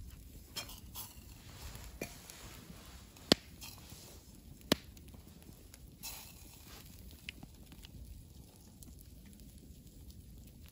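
A wood campfire crackling faintly, with two sharp pops about a second and a half apart.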